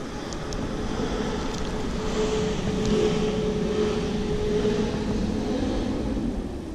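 A motor vehicle crossing the road bridge overhead: engine and tyre noise that swells over a couple of seconds, holds with a steady hum, and fades away near the end.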